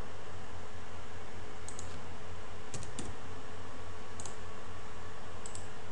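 A few scattered clicks of computer keys, one or two at a time, over a steady low electrical hum and hiss.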